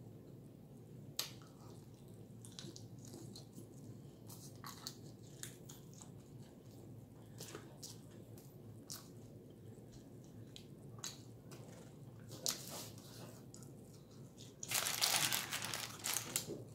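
Close-up eating sounds of spicy chicken wings: quiet chewing with scattered wet mouth clicks and smacks. Near the end, about two seconds of louder rustling as the paper wrapping of the food is handled.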